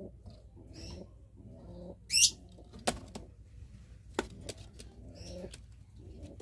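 Domestic pigeons cooing, a low rolling coo repeated in short phrases about every half second, the courtship call of pigeons at mating. A short high chirp comes about two seconds in, and a few sharp snaps follow near the middle.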